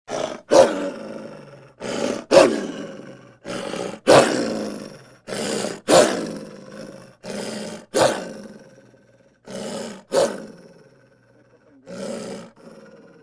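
Arctic wolf giving a series of short, harsh vocal outbursts, about one every two seconds. Each one is a softer lead-in followed by a sudden loud peak that fades away, and the last few are fainter.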